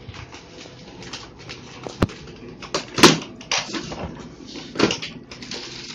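Handling noise from a water-filled plastic fish bag: irregular rustling and crinkling with a few sharp knocks, the loudest about three seconds in.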